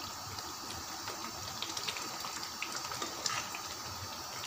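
Thick tomato gravy with kofta simmering in a pan while a wooden spoon stirs it: a steady hiss with many small scattered pops of bubbles.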